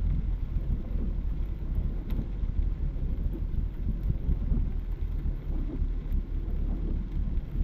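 Steady low rumble inside a car driving on a rain-soaked expressway in a torrential downpour: tyres on standing water and heavy rain on the body, heard from the cabin.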